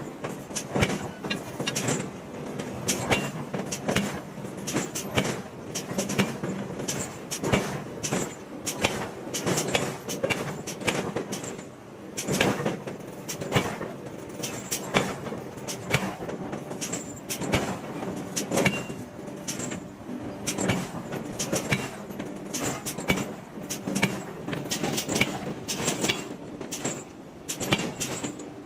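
Forging machinery striking hot iron blocks: a steady run of sharp metal blows, irregular and several a second, over a continuous mechanical din.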